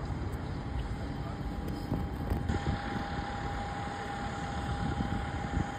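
Outdoor urban rumble of distant engines and traffic, with a thin steady hum; the background shifts slightly about two and a half seconds in.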